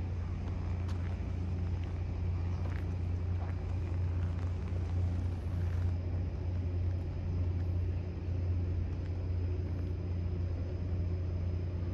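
A steady low engine rumble that holds an even level, with a few faint ticks over it.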